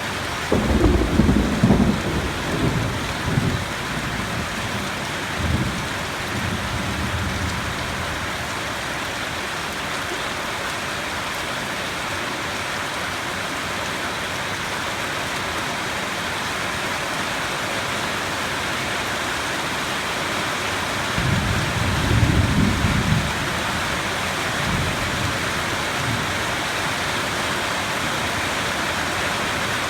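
Steady heavy rain with thunder rumbling twice: once just after the start, rolling for a few seconds, and again about two-thirds of the way through.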